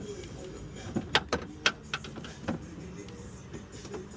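Light clicks and taps of a hand and small parts working inside a car door shell, several in quick succession from about one to two and a half seconds in, over a faint steady hum.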